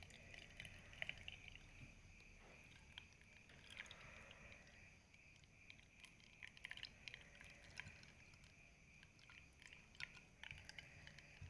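Near silence: faint room tone with a steady high-pitched hum and scattered faint ticks.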